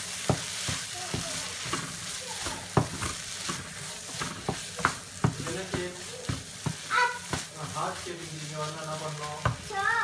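Scrambled egg and onion masala sizzling in a nonstick frying pan while a wooden spatula stirs and scrapes it, knocking irregularly against the pan.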